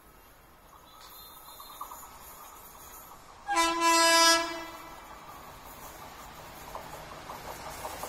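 WAP4 electric locomotive's horn sounding one blast about a second long as the train approaches. The train's rumble grows steadily louder after it.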